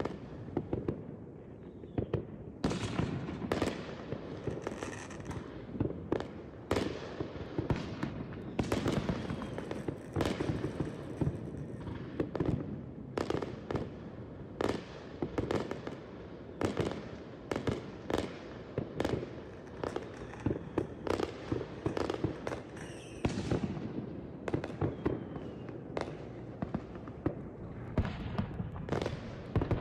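Aerial fireworks going off in quick succession: a steady run of sharp bangs and crackles, about one or two a second, over a continuous low rumble.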